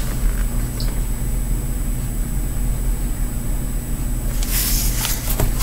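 Steady low electrical hum with a faint high-pitched whine: the room and recording background, with no other source. A brief hiss about four and a half seconds in.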